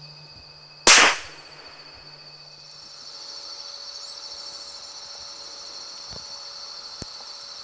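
A single gunshot about a second in: one sharp, loud crack with a short tail. Afterwards a steady high insect trill, like crickets, goes on.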